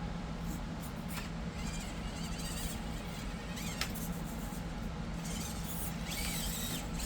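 Small brushed motor and gear drivetrain of an Axial SCX24 1/24-scale RC crawler whining in short spells, its pitch rising and falling with the throttle as the truck crawls up an obstacle.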